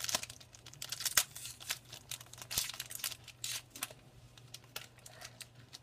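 A hockey card pack's wrapper being torn open and crinkled by hand: irregular crackling and rustling, busiest in the first second or so and again a little past the middle.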